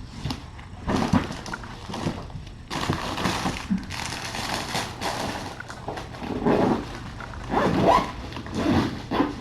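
Cats meowing several times in short calls, the loudest about eight seconds in. Before them come stretches of rustling as items are handled and packed.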